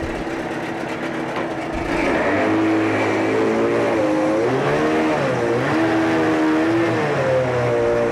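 Two-cylinder two-stroke engine of a 1988 Evinrude 30 hp tiller outboard running in a test tank. It idles at first, then about two seconds in it is revved up and down several times with the twist-grip throttle.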